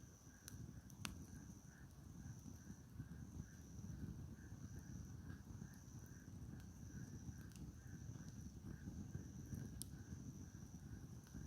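Firewood campfire burning faintly: a low, steady rush with a few sharp crackles and pops from the logs. Behind it is a steady, high-pitched pulsing chirr.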